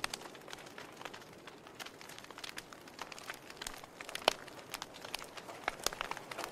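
Wood fire burning in a fireplace, crackling with irregular small pops and snaps over a faint hiss; one sharper pop a little past four seconds in.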